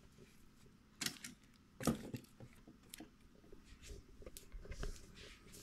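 Faint handling noises: scattered light clicks and rustles, with two sharper knocks about one and two seconds in, as a foil-wrapped gift box is carried and set down.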